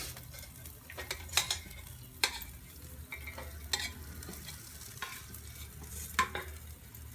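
Marinated chicken sizzling on an electric barbecue grill, with several sharp clicks and knocks as pieces are handled and put on.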